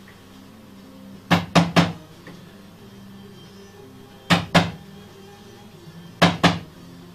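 Sharp wood-on-wood knocks from a wooden mallet working the wooden music box: three quick knocks about a second in, then a pair near the middle and another pair near the end.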